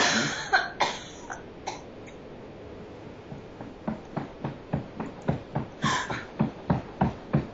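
A woman's harsh cough right at the start, followed by a few more coughs. From about four seconds in come short, rapid coughing heaves, about three a second, as her body convulses.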